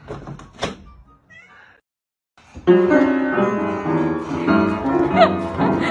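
Piano keys sounding in uneven clusters of notes as a cat walks across the keyboard, with a cat meowing among them. Before that there are a couple of soft knocks and a short silence.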